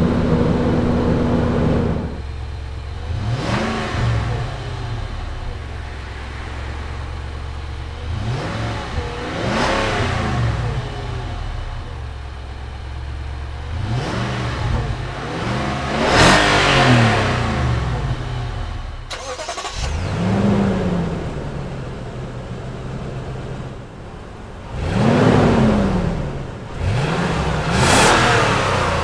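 Exhaust of a 2017 Nissan Armada's 5.6-litre V8 idling and blipped, several short revs that rise and fall back to idle, one cluster of quick revs in the middle. About two-thirds of the way through it gives way to a Lexus GX 460's 4.6-litre V8, also idling and blipped a few times.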